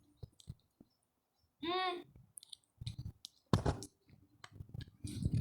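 Small mouth clicks and smacks from eating chocolate, with a short hummed "mm" just under two seconds in.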